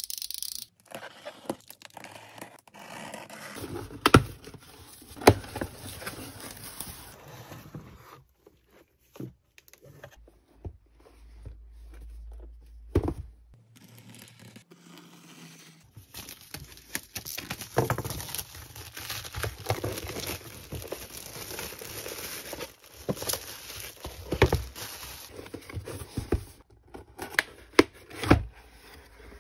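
A cardboard shipping carton being opened with a box cutter and by hand: packing tape slit and torn, paper crinkling, and cardboard scraping and rubbing, with a few sharp knocks as the box is handled.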